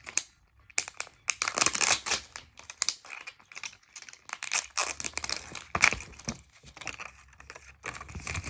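Thin plastic wrapping crinkling and tearing in quick, irregular bursts as it is peeled off a toy capsule by hand.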